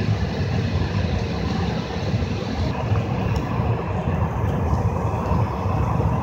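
Steady low hum and rush of air inside the cabin of a parked CRJ700 regional jet, its air-conditioning and onboard systems running before engine start.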